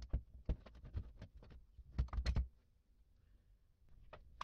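Metal parts of a car starter motor knocking and clicking as the housing is handled: a run of light knocks, then a louder cluster of knocks about two seconds in.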